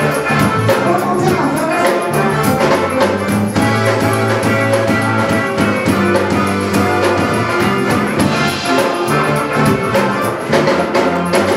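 Live band playing dance music: electric guitars, bass guitar and drum kit, with a steady beat.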